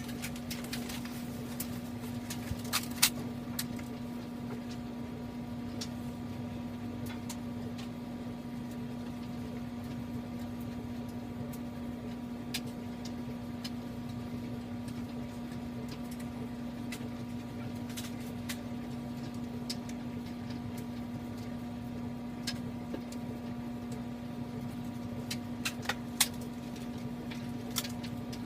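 A steady low hum of a room with a machine running, with scattered sharp clicks and knocks, several of them close together about 2–3 seconds in and again near the end.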